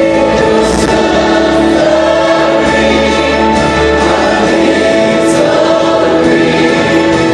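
Christian worship music with a choir singing long held notes.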